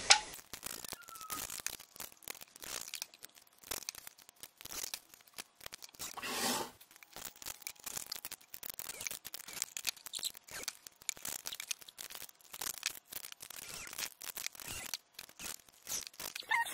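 Thin aluminium sheet, cut from drink cans, being handled and screwed onto a box wall: crinkling of the thin metal and many small clicks of screws and washers. A short, louder burst of noise comes about six and a half seconds in.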